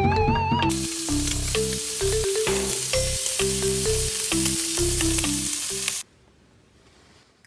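Food sizzling and frying in a pan, a dense hiss with scattered pops, over background music with a bass line and a simple melody. Both cut off suddenly about six seconds in, leaving near silence.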